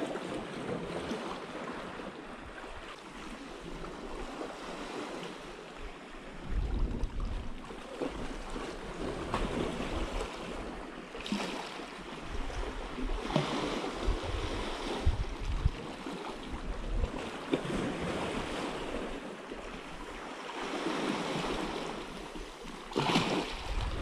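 Small sea waves washing against a rocky shore, swelling and easing every few seconds, with gusts of wind buffeting the microphone now and then.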